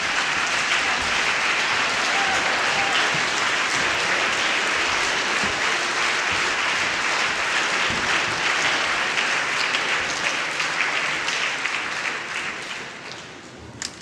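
Studio audience applauding, the clapping fading away over the last couple of seconds.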